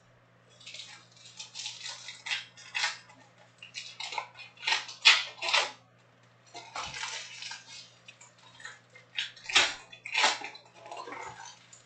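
Trading-card pack wrappers crinkling and tearing as Topps Chrome packs are opened and handled by hand, in irregular bursts with a short pause about six seconds in.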